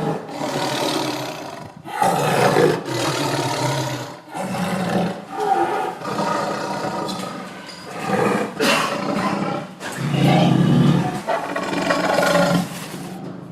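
Tiger roaring over and over, a string of throaty roars each a second or two long, one about every two seconds.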